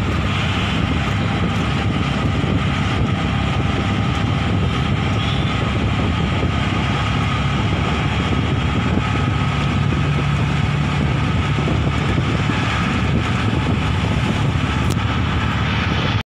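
Auto-rickshaw engine running steadily as the three-wheeler drives along, with road and wind noise rushing through the open cab.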